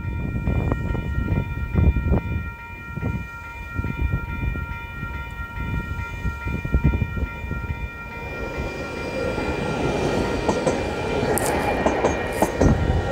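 Level crossing warning bells ringing steadily while an Auckland AM class electric multiple-unit train approaches. Its rumble grows from about eight seconds in as it runs past close by, with clicking wheel noise near the end.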